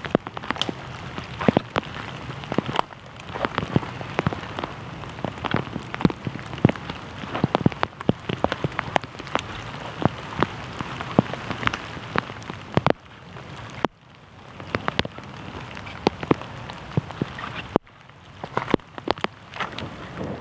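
Small fire of birch bark and thin dead sticks crackling, with dense, irregular snaps over a steady hiss.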